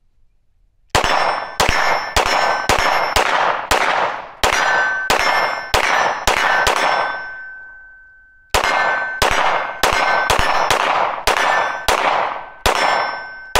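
SIG P320 Spectre Comp 9mm compensated pistol fired in two quick strings, about a dozen shots and then about ten, roughly two shots a second with a short pause between. Each shot is followed by a ringing metallic tone like a struck steel target. The pistol cycles through both strings without a malfunction.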